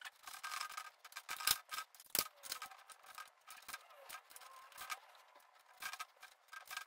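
Light clicks and taps of a screw, washer and nut being fitted by hand to a plastic inlet on a stainless steel vacuum drum, with two sharper knocks about one and a half and two seconds in.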